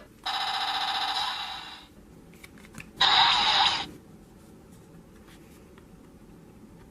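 Electronic transformation-belt sound effects for an attack card: a buzzing electronic tone for about a second and a half, then a short, loud blast sound about three seconds in.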